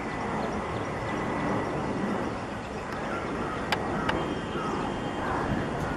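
Airbus A320 airliner's jet engines heard at a distance on landing approach: a steady, rumbling noise, with two short sharp clicks near the middle.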